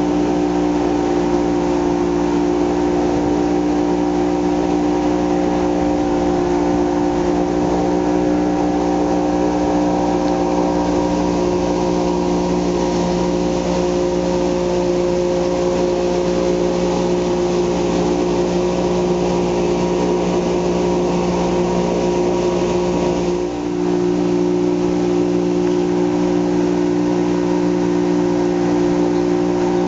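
Engine of a wooden passenger riverboat running steadily under way, a constant drone with a short dip about two-thirds of the way through.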